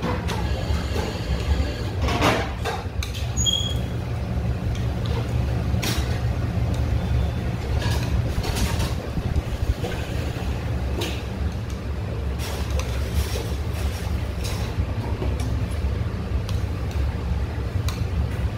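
A person wolfing down jjajangmyeon noodles: scattered short slurps and clicks of chopsticks against the bowl, over a steady low rumble.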